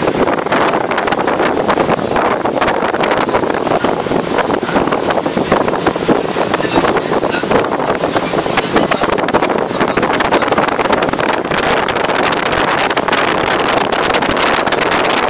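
Speedboat under way, heard from on board: a steady rush of engine and water noise, with wind buffeting the microphone.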